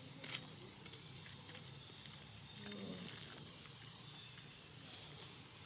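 Faint rustling and soft ticks of long-tailed macaques moving through grass and leaves, with a brief low sound about three seconds in and a sharp click just after.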